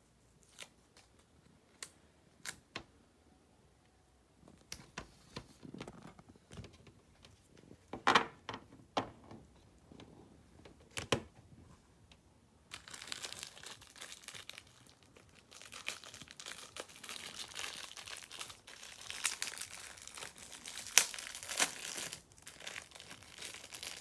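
Faint crinkling handling noise: a few scattered clicks and crackles at first, the loudest about a third of the way in, then steady crinkling and crackling from about halfway through.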